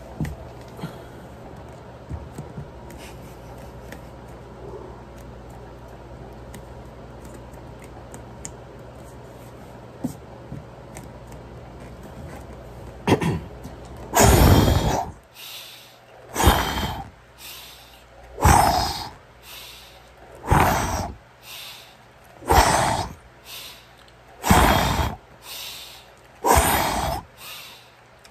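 A man breathing hard while doing push-ups. After about half the time of low room noise with a few small knocks, a loud forceful exhale comes about every two seconds, with a softer breath between, in a steady rhythm.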